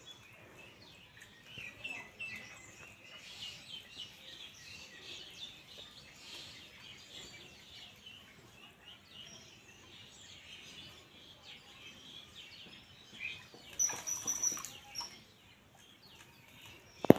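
Small birds chirping and calling, a scatter of short high chirps. About fourteen seconds in there is a louder, brief noisy burst with a high note in it.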